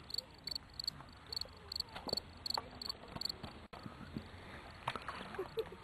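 An insect chirping in an even rhythm, roughly three short high chirps a second, stopping a little after three seconds in, over quiet outdoor background.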